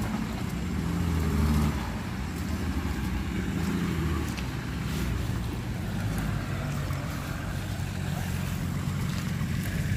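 Nissan Patrol off-roader's engine working under load as it churns through deep mud, revving harder about a second in and then settling into a steady drone.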